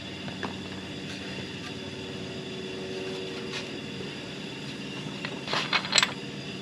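Steady hiss of compressed air from a leak-down tester pressurising one cylinder of a Honda H22 engine, with air leaking out of the cylinder. A few sharp clicks come near the end as a hand works on the valve cover.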